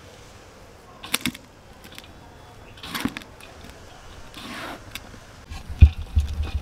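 Hand mixing a pile of sliced onions and gram flour in a large steel pot: rustling and crunching of the mixture with a few sharp clicks. Low thumps start near the end.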